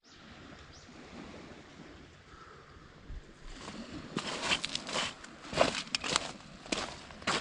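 Footsteps crunching on the ground, starting about three and a half seconds in at roughly two steps a second, over a faint outdoor hush.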